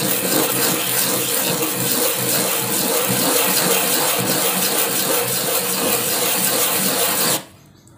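A small block of angsana (sono kembang) wood rubbed quickly back and forth on cloth-backed sandpaper for finish sanding: a steady, loud rasping hiss that stops abruptly near the end.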